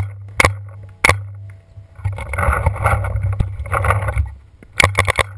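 Paintball marker firing sharp single shots at the start, about half a second in and about a second in, then a quick burst of three or four shots near the end.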